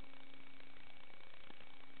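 Steady electronic hiss with faint constant tones and a single click about one and a half seconds in: noise from the analog FPV goggles' recorder, with no sound of the RC truck itself.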